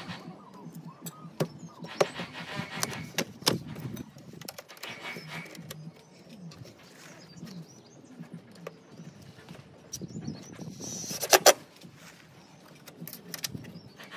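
Anthracite aluminium eave cladding panel being handled and fitted into place by hand: scattered light metallic clicks and knocks, with a louder clattering burst about eleven seconds in.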